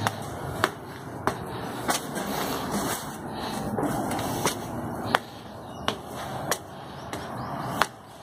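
Footsteps climbing marble stairs, one sharp step about every two-thirds of a second, over a steady background hiss.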